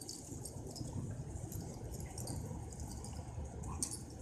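Two dogs scuffling over a rope toy on concrete: scattered small scratches and clicks of claws and rope, with a sharper click near the end, over a constant low rumble.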